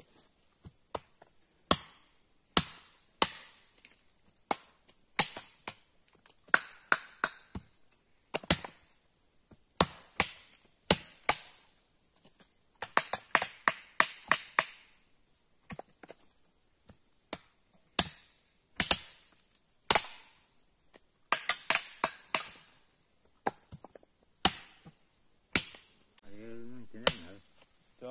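Machete blows chopping open hard, woody Brazil nut pods: sharp, irregular chops, about one or two a second. Insects drone steadily and high-pitched behind them.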